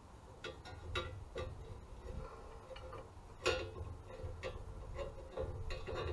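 Irregular light metallic clicks and clinks of parts and tools being handled, over a low rumble; the loudest clink comes about three and a half seconds in.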